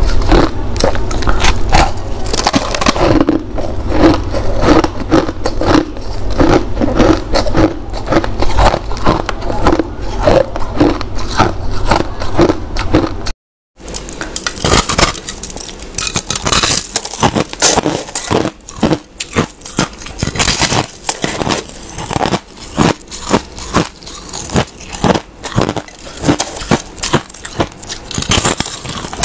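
Crushed ice being bitten and chewed, in dense, rapid crisp crunches, broken by a brief silent gap about halfway through.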